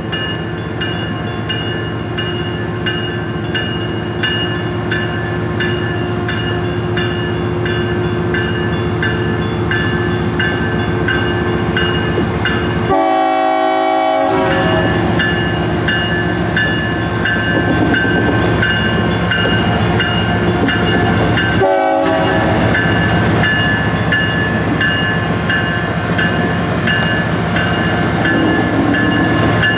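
Railroad crossing signal bell ringing over and over while an approaching diesel freight train sounds its horn, the train getting louder as it nears the crossing.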